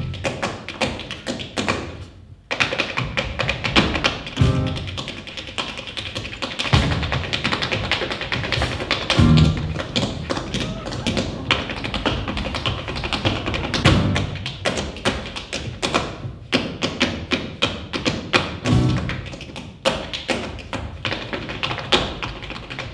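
Two dancers' tap shoes rapping out fast, dense rhythms on a stage floor, with a drum kit playing along. The taps stop briefly about two seconds in, then resume.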